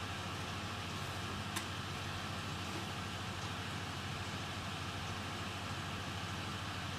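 Steady background hiss with a low hum, and a single small click about one and a half seconds in.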